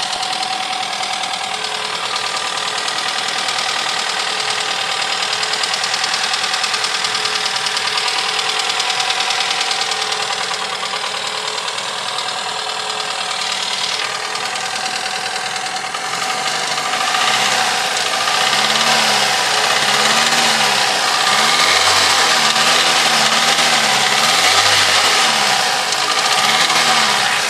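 Toyota 3S-FE 2.0-litre four-cylinder petrol engine running loud with a diesel-like clatter and extra noises, which the owner questions as abnormal. It idles steadily for about the first half, then is revved up and let back down several times in quick succession.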